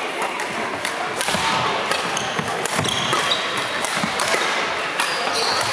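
Busy badminton hall: scattered racket-on-shuttlecock hits and brief squeaks of shoes on the wooden court floor from games on several courts, over a steady echoing background of people.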